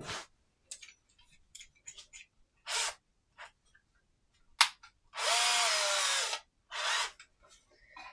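Cordless drill run briefly, its motor whine rising a little and then dropping over about a second, with a shorter burst just after. Before it come light clicks and rattles as a drill bit is fitted.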